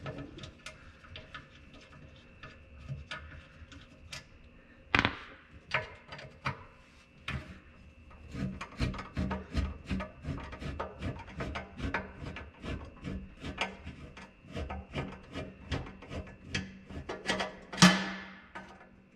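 Screwdriver turning the screw of a hose clamp around a trim tab actuator's piston shaft: a run of small sharp clicks and rubbing, sparse at first and then several clicks a second, with a louder knock about five seconds in and another near the end.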